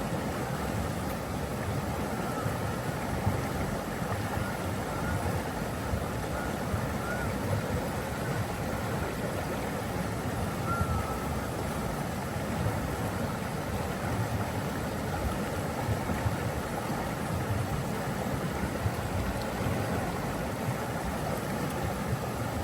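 Steady rushing water, as of a waterfall or stream, an even noise that holds at one level throughout.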